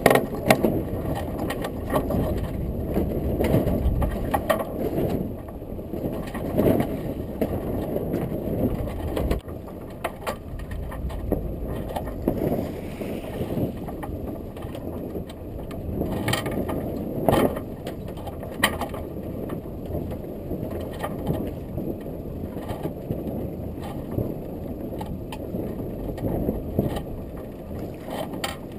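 Yacht's roller furler turning as the genoa is rolled in, giving scattered mechanical clicks over a steady low rushing of wind and water.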